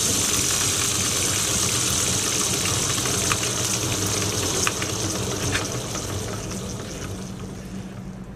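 Electric drive motor running steadily, belt-spinning a homemade two-cylinder Scotch yoke engine at speed, a hum with a high hiss that the builder calls really noisy; the engine itself runs smoothly with no hammering or knocking, just a few faint ticks. The sound fades away over the last few seconds.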